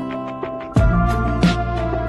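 Instrumental background music: held melodic notes, joined just under a second in by a deep bass and a steady drum beat.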